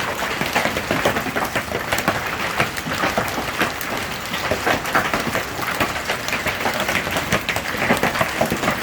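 Hailstones pelting down hard, a dense, steady clatter of countless small impacts on hard surfaces. The stones are large, some around 3 centimetres across.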